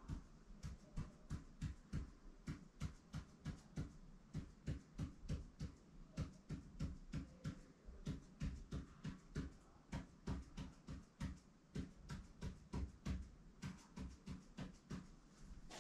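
Ink pen tapping and scratching on paper laid on a hard table, making short tally strokes one after another in a steady, quick rhythm of about two to three strokes a second.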